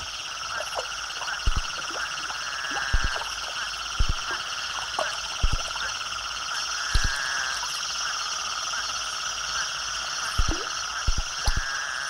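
A dense chorus of spadefoot toads calling, with many overlapping calls blending into a steady drone. A few short low thumps are scattered through it. It is a breeding chorus: the toads calling to advertise for mates.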